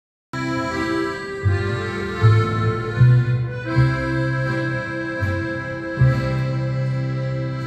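Accordion music: sustained chords over a bass line that steps from note to note, starting suddenly about a third of a second in.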